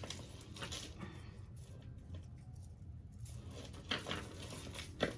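Costume jewelry being handled and untangled: small metal chains and pieces rustling and lightly clicking, with a few sharper clicks near the end.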